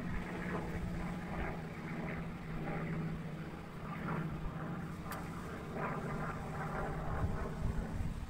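A steady low motor hum that fades out near the end.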